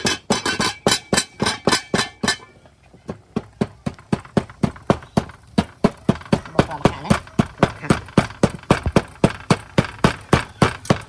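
Wooden pestle pounding dry seeds in a wooden mortar: a steady knocking of about three to four strikes a second.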